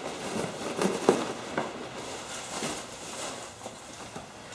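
Hands rummaging through packing peanuts in a shipping box: an irregular rustling and crackling, with a couple of sharp clicks about a second in.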